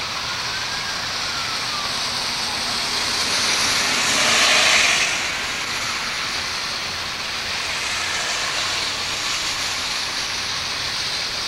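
A vehicle passing, its hiss swelling louder about four to five seconds in over a steady rushing background noise.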